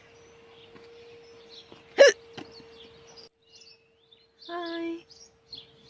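A woman's single sharp hiccup about two seconds in, one of a persistent bout of hiccups.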